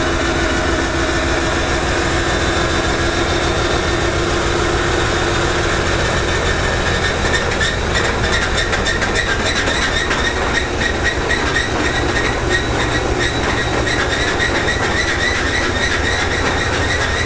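2TE10M diesel locomotive running with a steady engine drone from its 10D100 two-stroke opposed-piston diesels. From about seven seconds in, a quick run of clicks and clatter joins it, as from wheels passing over rail joints.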